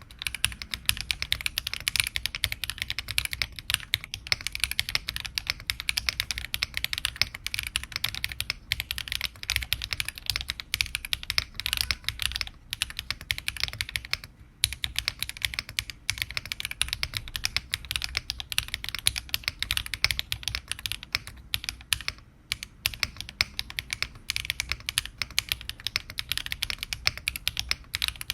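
Weikav Nut65 mechanical keyboard, with a 1.6 mm PCB and no foam, being typed on continuously in rapid clacky keystrokes, with short pauses about twelve and fourteen seconds in. The top case is closed, which makes the sound more muffled than with the case open.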